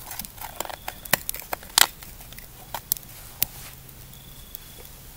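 A few sharp clicks and crackles, the loudest about a second and about two seconds in, from a small metal char cloth tin and its charred cloth being handled.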